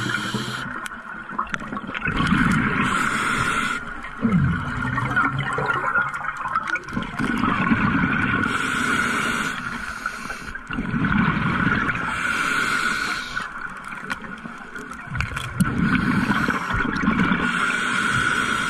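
Scuba diver breathing through a regulator underwater: a hiss on each inhale and a rush of bubbling on each exhale, about four breaths in a slow, even rhythm.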